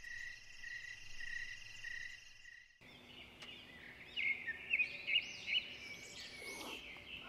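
A steady, pulsing night chorus of chirping insects that cuts off suddenly about three seconds in, followed by birdsong: many short, quick chirps.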